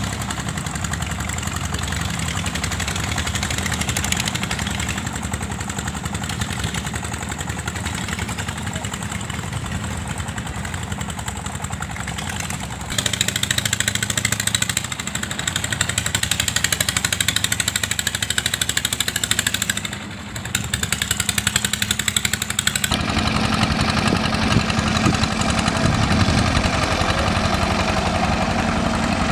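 Engines of small wooden fishing boats running steadily on the river, a continuous engine drone that grows louder about halfway through and drops briefly shortly after.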